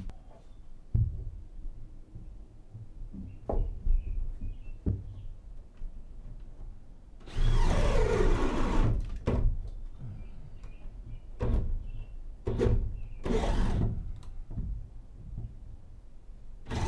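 Cordless drill boring holes through a wooden cabin-top beam to pass wires. One burst lasts about two seconds, starting a little before halfway, with its pitch falling. A shorter burst comes later, and scattered knocks and thumps fall in between.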